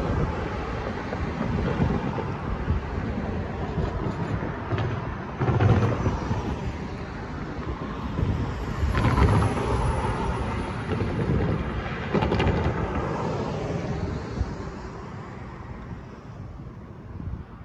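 Road traffic passing close by, several cars swelling past one after another, then fading near the end, with wind buffeting the microphone.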